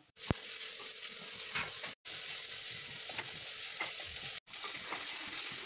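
Chopped shallots and onions frying in hot oil in a clay pot, sizzling steadily. The sound cuts out abruptly twice.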